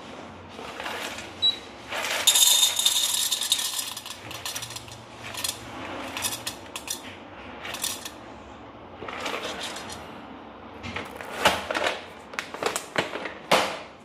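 Whole coffee beans poured from a bag into a small dosing cup on a scale: a dense rattling pour about two seconds in, then scattered clicks as a few beans at a time drop in to bring the dose to about 20 grams.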